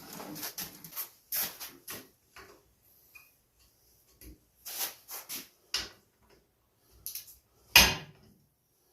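Hand tools and metal parts clinking and clicking at uneven intervals as a wrench is fitted to bolts on a garden tiller frame, with one louder knock near the end.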